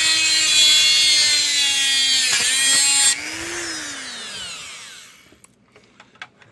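Multi-purpose rotary tool with a cutting blade running at high speed and cutting through a part that is too long: a high whine over a gritty cutting noise. About three seconds in the cut ends and the motor winds down, its pitch falling, followed by a few small clicks.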